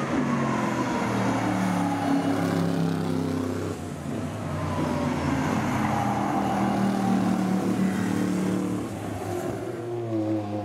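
Racing car engines running hard on track, several at once, their pitch sliding down and rising again as the cars pass and change speed.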